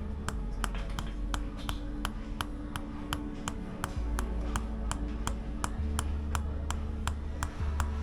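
Rhythmic Tok Sen tapping: a wooden mallet striking a wooden wedge against the body in sharp, even clicks at about three to four a second. Low steady background music runs underneath.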